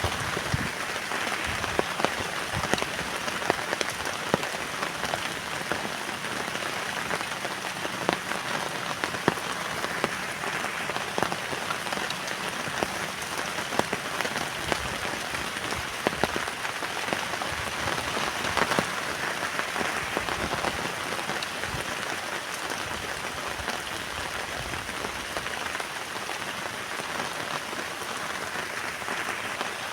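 Heavy rain falling steadily on a tent, with many individual drops striking sharply through the steady patter.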